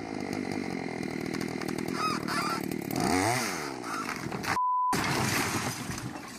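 Small chainsaw running as it cuts down into an old straw-and-earth wall, its pitch dipping and recovering about three seconds in. A censor bleep cuts in about four and a half seconds in, followed by louder rough noise.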